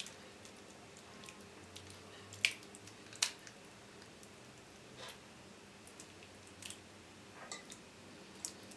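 Thick, wet egg-and-cheese topping sliding and plopping out of a ceramic bowl as a metal spoon pushes it out. The spoon gives a few scattered faint clicks against the bowl, the sharpest two about two and a half and three seconds in.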